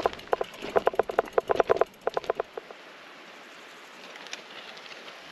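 Rapid clicking from a gravel bike's rear freewheel hub as the wheel coasts, slowing and stopping about two and a half seconds in. After that only faint outdoor background.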